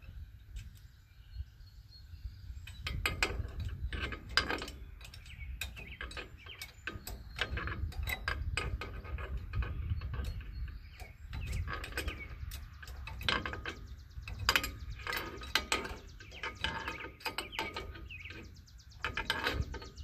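Metal combination wrench turning a bolt into a wheel-bearing flange and hub adapter, giving irregular metallic clicks and scrapes as it is moved and reset on the bolt head, stroke after stroke.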